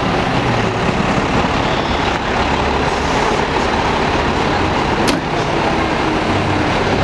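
A fire engine's diesel engine running steadily at idle, mixed with the noise of passing street traffic.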